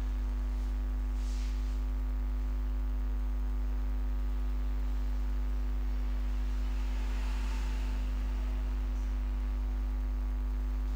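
Steady electrical mains hum with a buzz of higher overtones over it and a faint hiss, unchanging throughout.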